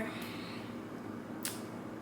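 Quiet room tone: a faint, steady hum with a single soft click about one and a half seconds in.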